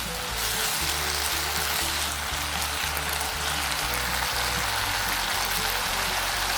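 Background music with a repeating bass line over a steady, even sizzle of food frying in a hot pan.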